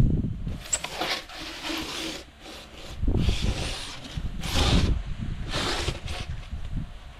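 Expanded polystyrene (EPS) insulation board rubbing and scraping against the EPS guillotine cutter in a run of four or five short strokes.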